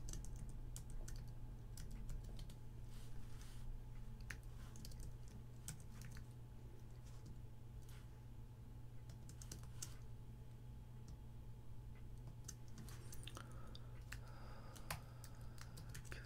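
Typing on a computer keyboard: irregular bursts of keystrokes with short pauses between, over a steady low hum.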